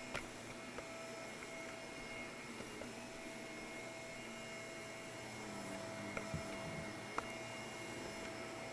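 Shark vacuum cleaner running steadily on carpet, a constant motor hum with a thin whine over it, broken by a few light clicks and ticks.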